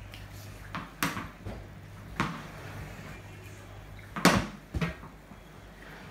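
Sharp knocks of a ball against a wooden cricket bat and the tiled floor in a small room, four in all, the loudest about four seconds in.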